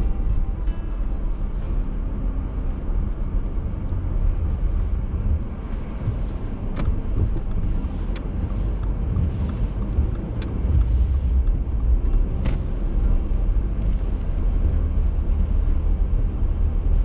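A steady low rumble, with a few sharp clicks scattered through it.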